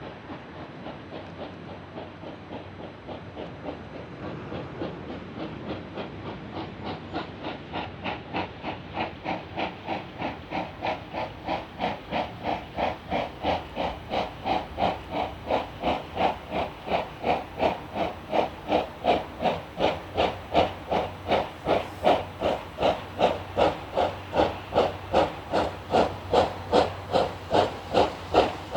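C11-class steam tank locomotive working hard at very low speed, its exhaust beats coming about twice a second over a steady hiss of steam from the open drain cocks. The beats start faint and grow steadily louder as the engine draws near.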